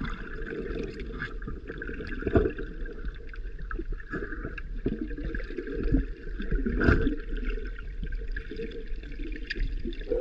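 Muffled underwater sound picked up by an action camera in its waterproof housing in shallow water: steady gurgling and sloshing of moving water, with two sharp knocks about two and a half and seven seconds in.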